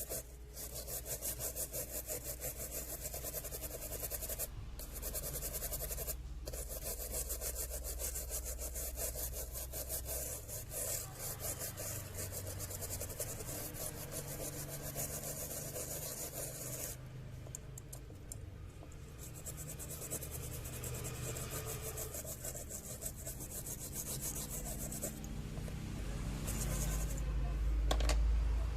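A brush scrubbing a phone's charging circuit board in rapid back-and-forth strokes, a dry scratchy rubbing, as the board is washed to clear dust. It breaks off briefly twice in the first few seconds.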